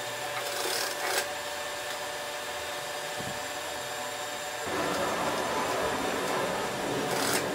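Industrial sewing machine running steadily, stitching a waistband onto denim pants, with a steady motor hum that gets louder a little over halfway in.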